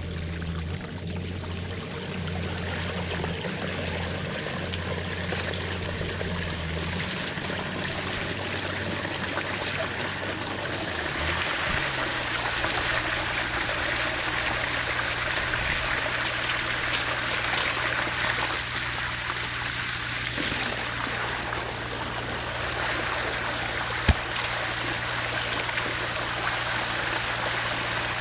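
Water running steadily through a freshly unclogged culvert, growing fuller about a third of the way in. A steady low hum runs underneath and shifts pitch partway through, and there is one sharp click near the end.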